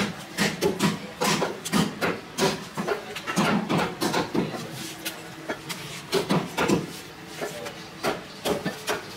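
Butcher's cleaver chopping bone-in beef on a round wooden chopping block: a run of sharp knocks, often several a second, with short pauses between runs.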